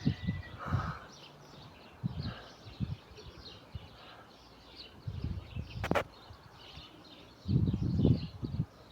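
Gusts of wind buffeting the microphone in low rumbling bursts, with birds chirping faintly throughout and one sharp click about six seconds in.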